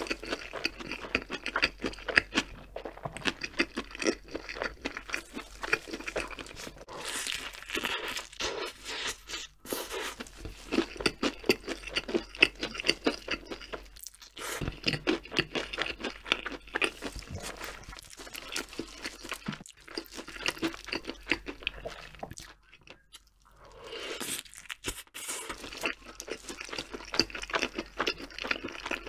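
Close-miked chewing of a crispy fried chicken burger: dense wet crunches and crackles of breading, with brief quieter pauses about halfway through and again near the end.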